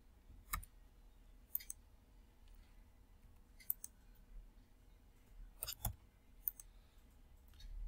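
Faint, sharp clicks of a computer mouse and keyboard, about seven spread irregularly, some in quick pairs, over a low room hum.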